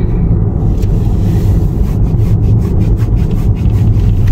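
Car driving at low speed, heard from inside the cabin as a steady low road and engine rumble. A run of light clicks and rubbing comes through near the middle.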